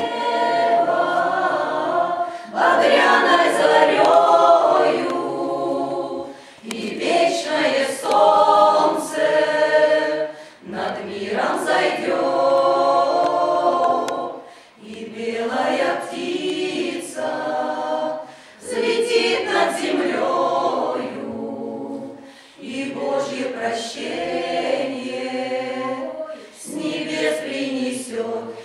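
Folk choir of mostly women's voices with a few men singing together, in phrases of about four seconds with a short breath between each.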